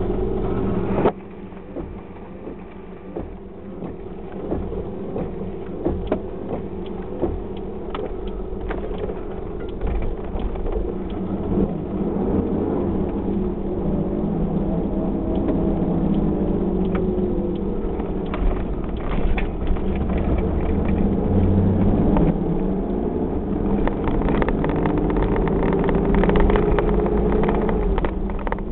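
Car engine and road noise heard from inside the cabin while driving, the engine note rising and falling as the car speeds up and slows, with scattered small rattles and clicks.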